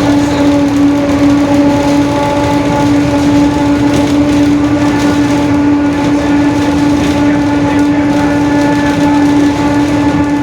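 Mercedes-Benz OF-1721 BlueTec 5 city bus running at a steady speed, with a loud, steady droning whine from its differential over the engine and road noise. The whine holds one pitch throughout.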